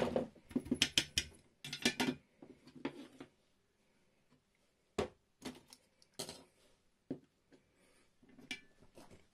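Light clicks and rattles of a plastic 00 gauge model railway point and tools being handled on a workbench, busiest in the first two seconds or so, then a few sparse single clicks as things are put down and picked up.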